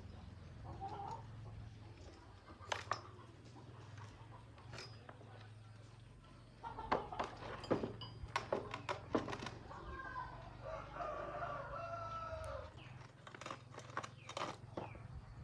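A rooster crowing once, a long pitched call about ten and a half seconds in, over a steady low hum that stops about twelve and a half seconds in. Scattered sharp clicks and knocks are heard, thickest in the middle.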